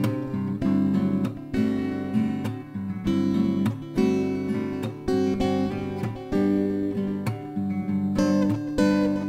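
Instrumental background music on acoustic guitar, chords strummed and plucked in a steady rhythm.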